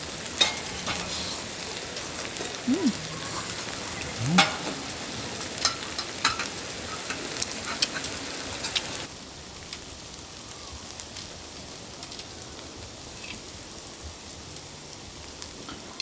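Marinated chicken pieces sizzling in a large cast-iron pan on a camping burner, with a few sharp clicks. The sizzling drops to a quieter level about nine seconds in.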